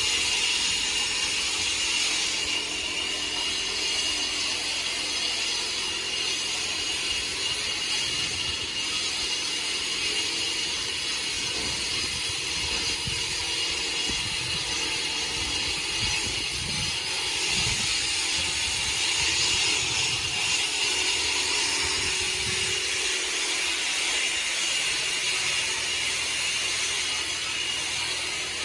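Steady machinery noise: a continuous hiss with a high, unchanging whine, and uneven low rumbling underneath.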